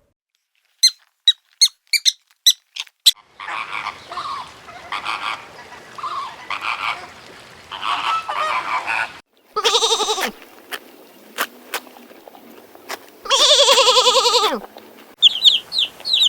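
Farmyard waterfowl calling in a series of short spliced clips: a quick run of about seven short high chirps, then several seconds of repeated calls over a hissy background, then two loud nasal honks, the second falling in pitch at its end, with high chirps starting near the end.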